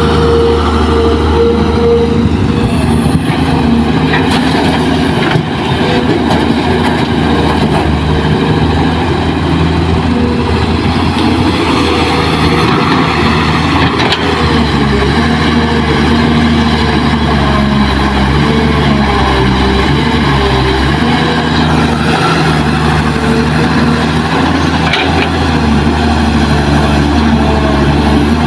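Kobelco SK200 hydraulic excavator's diesel engine running steadily under load as the machine digs soil.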